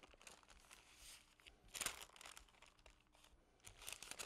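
Parchment paper rustling and crinkling in short, uneven bursts as it is lifted and folded to roll up a chicken meatloaf, the loudest crinkle just under two seconds in.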